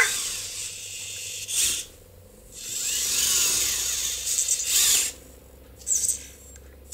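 Anki Cozmo toy robot's small geared electric motors whirring as it moves around its cubes during its cube-stacking routine. The whirring comes in several spells, the longest about two and a half seconds, with shorter bursts before and after.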